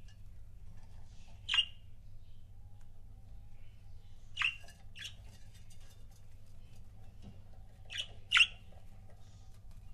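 Pet budgerigars giving short, sharp chirps, five in all and spaced out, two of them in quick pairs, over a low steady hum.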